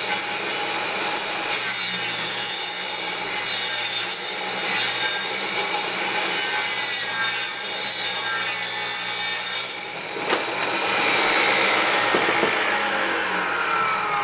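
Portable jobsite table saw ripping a long wooden board lengthwise: the blade cuts steadily over a constant motor hum for about ten seconds. Then the cut ends and the whine falls slowly in pitch as the saw winds down.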